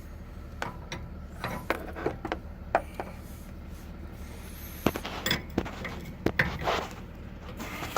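Metal hand tools clinking and scraping: a wrench being handled and worked against the tie rod and its nut, giving a scattering of irregular sharp clicks with a few louder knocks past the middle.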